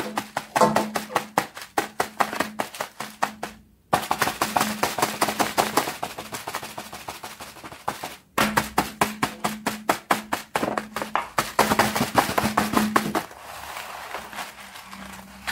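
Silicone pop-it fidget toy bubbles being pressed, a rapid run of soft pops at about four or five a second, stopping briefly twice, over a faint steady hum.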